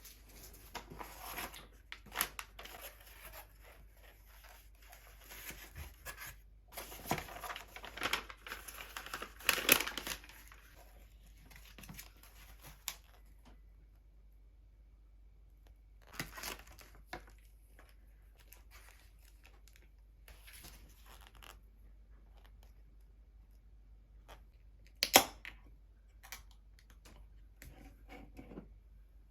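Packaging being torn open and crinkled, busy through the first dozen seconds, then a few scattered clicks and knocks, the loudest a sharp knock about 25 seconds in.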